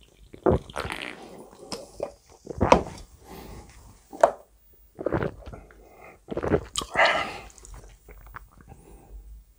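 Close-miked gulping and swallowing of cola drunk from a can, a string of separate wet gulps and mouth sounds, with a longer voiced sound about seven seconds in.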